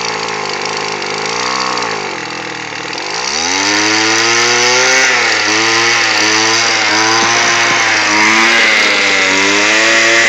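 Two-stroke engine of a Weed Eater Featherlite string trimmer running unevenly. It is revved up and down twice, then about three seconds in it climbs to a higher speed and holds there with the pitch wavering. It doesn't run the greatest: the throttle has to be kept working or the engine dies.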